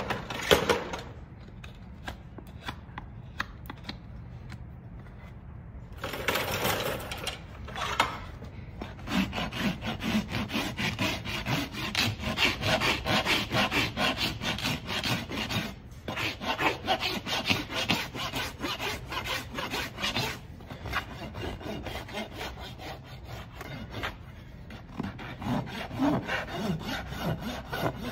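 A farrier's flat hoof rasp filing across the underside of a horse's hoof in quick back-and-forth strokes, levelling the trimmed hoof. A short scrape comes about six seconds in, and steady rasping from about nine seconds on.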